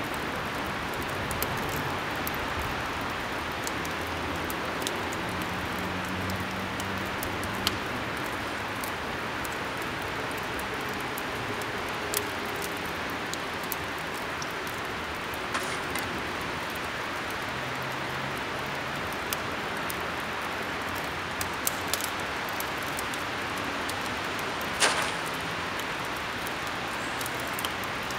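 Fire burning in a metal barrel: a steady rushing hiss with scattered sharp crackles and pops, one louder pop near the end.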